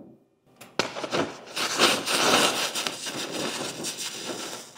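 Dense crackling hiss, full of rapid snaps, as a 2,000-watt laser beam burns into an iPod and the cardboard behind it. It starts suddenly about a second in and stays loud.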